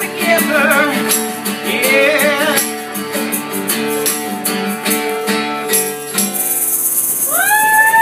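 Live acoustic guitar strumming with a singing voice and a steady percussive beat. The song ends about six seconds in, and whoops and cheering start near the end.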